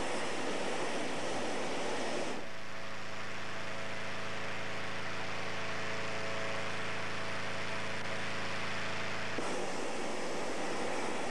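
Hot air balloon being inflated on the ground: an engine-driven inflator fan hums steadily under a loud rushing roar. The roar drops away about two seconds in, leaving the low motor hum with a few steady tones, and returns near the end.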